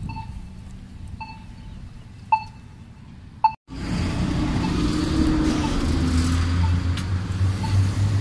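Accessible pedestrian signal at a crosswalk sounding its short locator beep about once a second. About three and a half seconds in, the sound cuts out for an instant, then a vehicle's engine and traffic noise take over, with the beeps still faint underneath.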